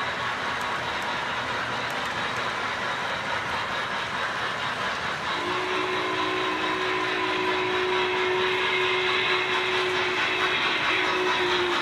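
O gauge model train rolling on three-rail track with a steady rumble and clatter. About five seconds in, a long, steady whistle from a locomotive's sound system starts and holds, growing louder as the MTH Union Pacific Big Boy approaches.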